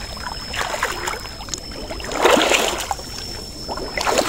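Shallow muddy floodwater splashing and sloshing as it is stirred around a gill net, loudest a little over two seconds in.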